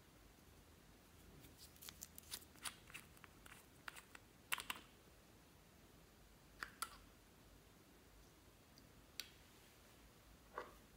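Clear slime being pressed and folded by hand, giving sharp little clicks and pops: a quick cluster between about one and a half and five seconds in, then a few single pops later.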